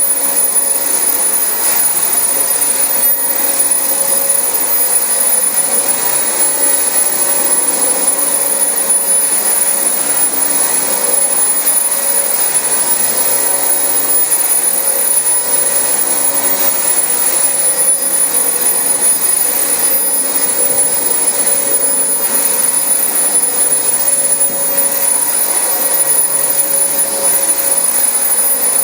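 Dyson DC25 upright vacuum cleaner running steadily over carpet: a constant rush of air with a high, steady motor whine.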